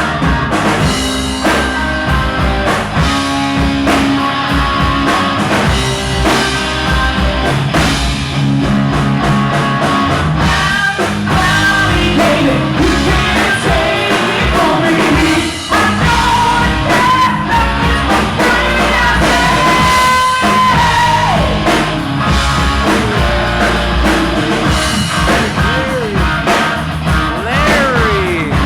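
Live rock band playing: electric guitar over drums and bass, with long held high notes in the middle and sliding notes near the end.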